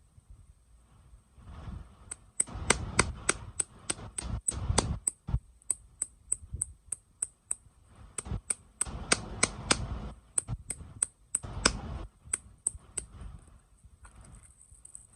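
Plastic sweet and toy packaging being handled and opened: a run of sharp clicks and taps, about two or three a second, over low rustling and crinkling, thinning out near the end.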